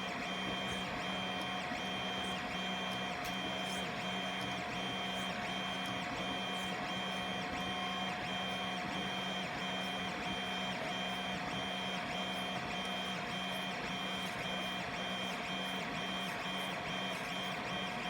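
Filament 3D printer printing, its stepper motors whining in several steady tones that shift in a regular back-and-forth rhythm as the print head sweeps along its fill lines.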